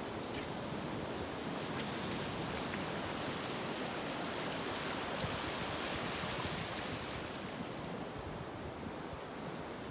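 Sea water washing, a steady rush that swells a little in the middle and eases toward the end.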